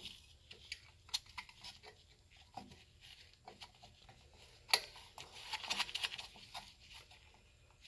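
Faint handling noises: a gloved hand rustling against and tapping a metal engine air cleaner housing, with scattered small clicks, one sharper click a little under five seconds in, and a denser patch of rustling about a second later.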